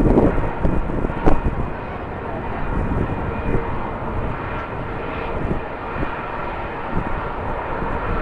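Airliner engines running steadily: a broad rumble with a faint high whine. Wind buffets the microphone at the start and about a second in.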